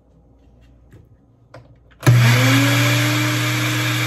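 Countertop electric blender switched on about halfway through, its motor spinning up with a rising whine and then running steadily as it blends a liquid mix of milk, cocoa and sugar. Before it starts, a few faint clicks as the blender is handled.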